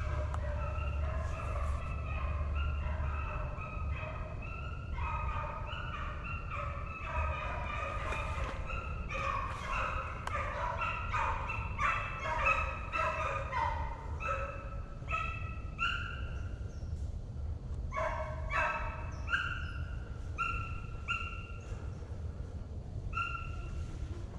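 A pack of deer hounds in full cry on a deer's trail, with many short barks and bays overlapping from several dogs. The chorus is densest in the middle and thins out toward the end.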